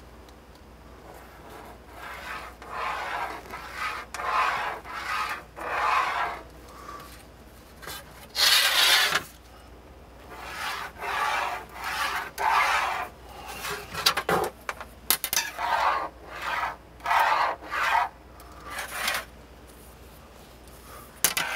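Pencil drawing lines along a steel ruler on a countertop: a series of short scratchy strokes, with a few sharp clicks in the middle.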